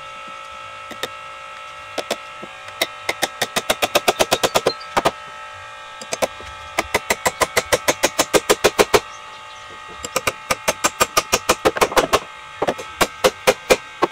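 Runs of quick, regular knocks, about six strikes a second, in three spells lasting a few seconds each, over a steady machine hum.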